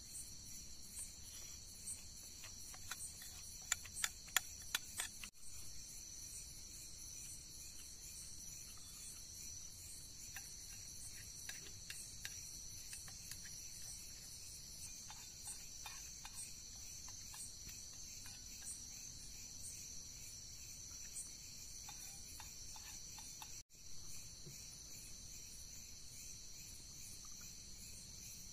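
Steady high-pitched chorus of crickets at night, with a quick cluster of sharp clicks about four seconds in and a few fainter clicks later.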